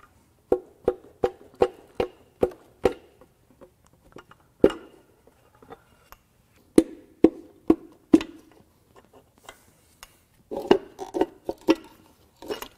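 Sharp knocks driving the connecting rods and pistons out of the cylinder bores of a BMW N26 four-cylinder block, each with a short ringing tone. A quick run of about seven knocks comes first, then a single one, then four more, and another cluster near the end.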